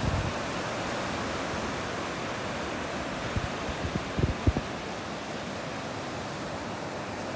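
Steady wash of surf on the beach. A few brief low bumps of wind on the microphone come about four seconds in.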